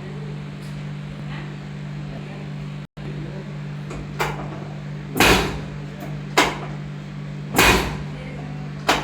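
Chiropractic adjustment: five knocks and thumps from hands working on the patient's body, starting about four seconds in, two of them heavier and longer than the rest, over a steady low hum.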